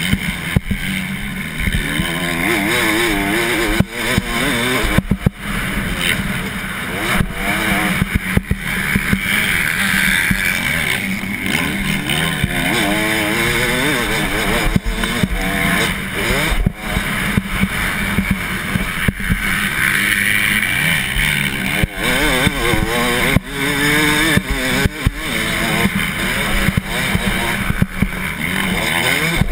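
Motocross dirt bike engine revving up and down hard as it is raced over the track, heard close from the rider's on-board camera, with frequent short sharp knocks throughout.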